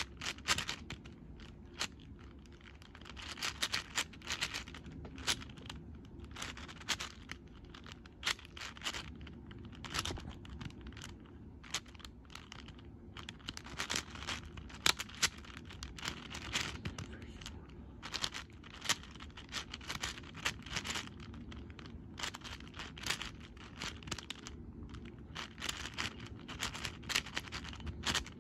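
X-Man Shadow V1 M 6x6x6 speedcube, lubricated with Silk, being turned fast by hand: rapid clattering clicks and scrapes of the plastic layers, in bursts with short pauses between.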